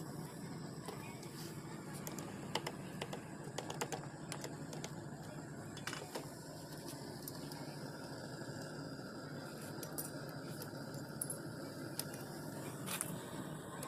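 Scattered light clicks and clinks of small hard objects being handled, most of them in the first half, over a steady low hum.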